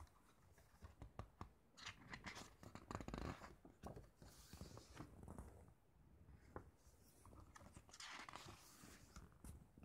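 Faint rustling and small clicks of a mediabook's glossy paper booklet being handled, with soft swishes of pages being turned around four and eight seconds in.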